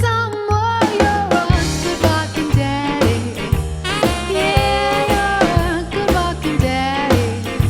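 Upbeat swing-style rock-and-roll music with a steady drum and bass beat and a melodic lead line.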